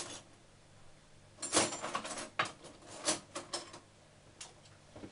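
Kitchenware being handled on the counter: a short scrape followed by a quick run of light knocks and clicks, from about one and a half to four seconds in, then a couple of faint ticks.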